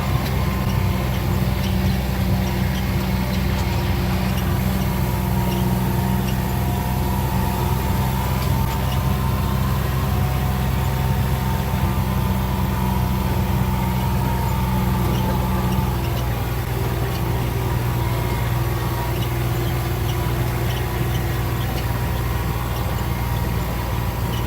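Vehicle engine running steadily while driving, a continuous low hum over road noise; one of its steady tones drops out about two-thirds of the way through.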